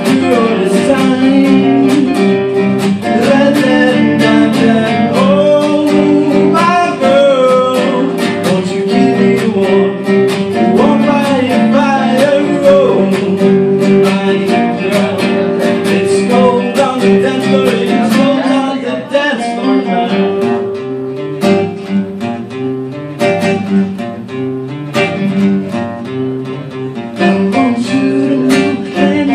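Two acoustic guitars strummed and picked with a man singing over them. A little past the middle the music gets quieter for several seconds, and it comes back fuller near the end.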